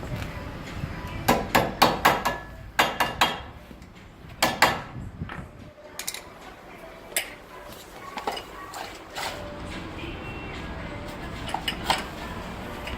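Metal tools and parts clanking and knocking: a quick run of sharp strikes in the first few seconds, then lighter, scattered clicks.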